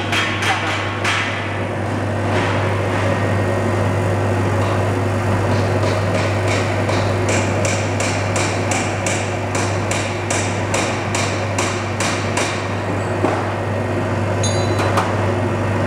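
Vacuum homogenizing emulsifier mixer running with a steady low hum. From about six seconds in, a regular series of sharp metallic knocks sounds at about three a second for some six seconds.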